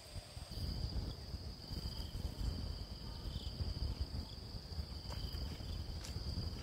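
Insects trilling steadily outdoors, one high-pitched tone held throughout and a second, lower one coming and going, over a low rumble.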